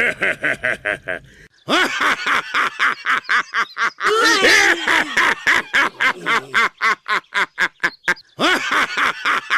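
Anime voice acting: an old man's hearty 'bwahahahaha' laugh, a long fast run of 'ha' syllables. In the first second and a half another character's laugh ends, and near the end a third laugh begins.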